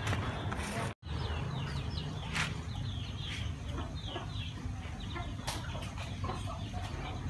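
Chickens clucking and cheeping, many short high calls in quick succession, with a few sharp clicks; the sound drops out for an instant about a second in.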